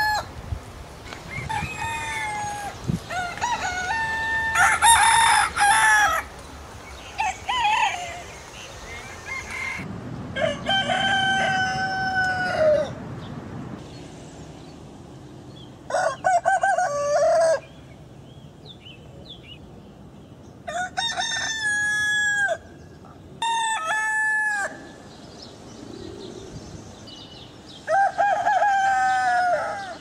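Roosters crowing again and again, about seven crows of one to three seconds each, separated by short pauses.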